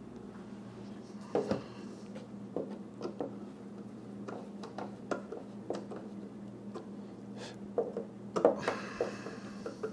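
Hand screwdriver driving wing hold-down bolts through the wing into threaded blocks for the first time, a stiff fit: scattered small clicks, creaks and rubs of the tool and wood, loudest about a second and a half in and again near the end. A steady low hum runs underneath.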